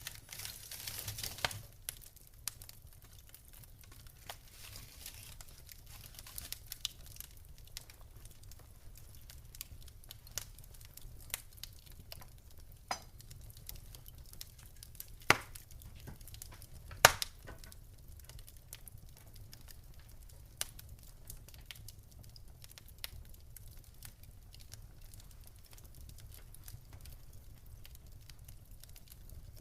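Wood fire in a fireplace crackling, with scattered sharp pops over a low steady rumble. A short hissing flare comes right at the start, and two louder pops land a couple of seconds apart about halfway through.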